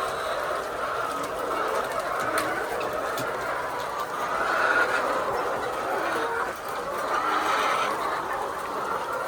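A large flock of laying hens clucking and calling all at once, a steady dense chorus of many birds.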